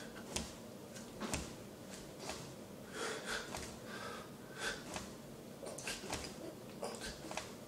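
A man doing push-ups on a hard floor: short, sharp sounds about once a second in time with the reps, from quick breaths and light knocks of his body and hands on the floor.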